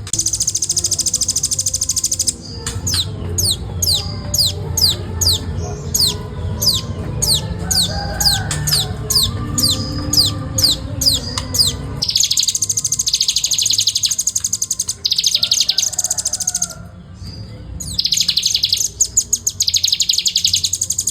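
Velvet-fronted nuthatch calling in dense, rapid high chattering trills in bursts. In the middle comes a run of quick falling whistled notes, about two a second, over a low rumble.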